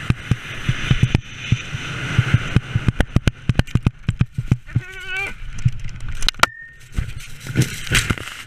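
Wind rushing over a helmet-mounted camera's microphone on a fast ski run. The skis clatter and scrape over hard, bumpy snow in a rapid, uneven run of knocks.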